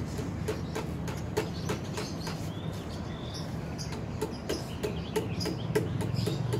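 Small plastic toy hammer tapping a plastic nail into the lid of a Blast Box balloon-popping game in quick light taps, spaced out at first and coming faster, about three or four a second, in the second half.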